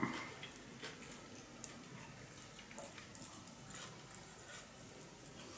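Faint, scattered wet clicks and smacks of eating: chewing with the mouth close to the microphone, and wooden chopsticks picking through steamed fish.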